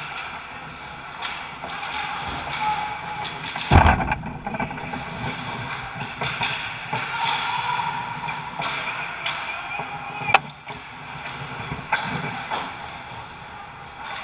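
Ice hockey play at the net: skate blades scraping the ice and sticks clacking, with a heavy thud about four seconds in and a sharp crack about ten seconds in.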